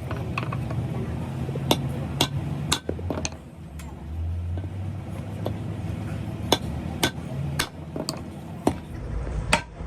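Sharp metallic clinks and taps of metal tools and brake parts being struck or knocked together, about eight at uneven intervals over a low steady hum.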